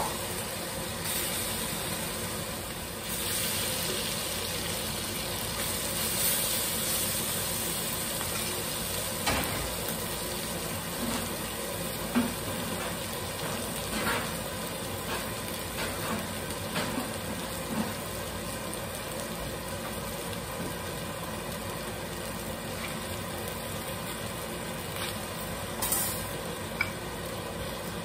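Shredded lamb barbacoa sizzling in a heated volcanic-stone molcajete, a steady hiss throughout. A handful of short clicks and knocks come in the first half, from the metal spoon and pan.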